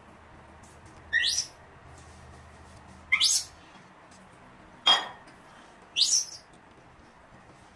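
Four short, high-pitched animal calls, each sweeping steeply upward in pitch, a second or two apart. The third is sharper and more click-like.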